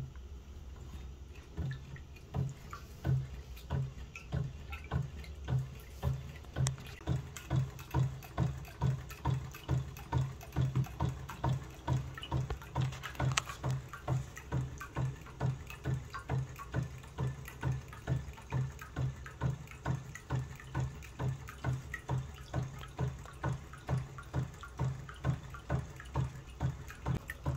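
1/4 scale model Rider-Ericsson hot air engine running steadily, with a low pulse about twice a second and light mechanical clicking.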